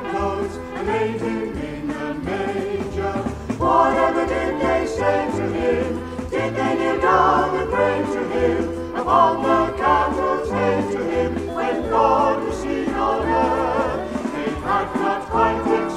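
Salvation Army gospel music: harmonised singing over an accompaniment with a steady, stepping bass line.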